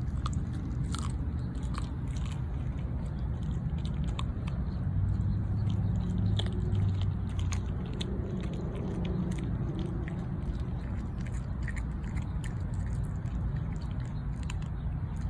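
A dog chewing a raw chicken leg quarter, with irregular crunches of bone between its teeth, over a steady low rumble.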